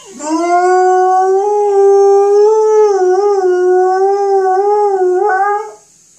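Alaskan Malamute howling: one long howl of about five and a half seconds that swoops up at the start, then holds a steady pitch with slight wavers before breaking off.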